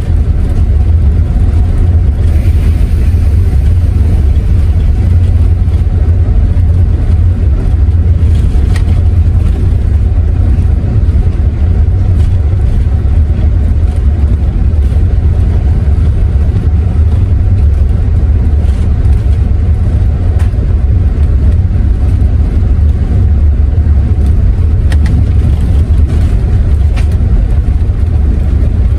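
Intercity coach driving along the road, heard from inside the cabin: a loud, steady low drone of engine and road noise.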